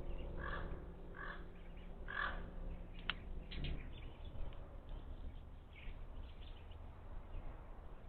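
Wild birds calling: three harsh calls close together in the first two and a half seconds, then fainter chirps. A single sharp tap comes about three seconds in.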